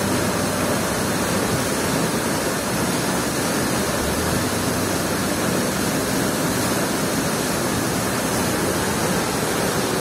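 Mountain waterfall: a steady, loud rush of water falling over rocks into a pool.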